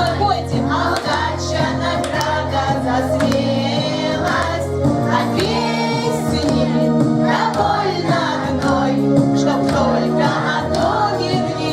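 Group singing over music, with the voices of children among them.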